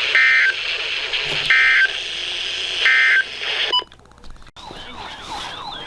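NOAA Weather Radio end-of-message: three short bursts of SAME digital data tones about 1.4 s apart, over radio hiss, closing a tornado warning. The radio audio cuts off about 3.8 s in, and near the end a repeating warbling, siren-like tone starts.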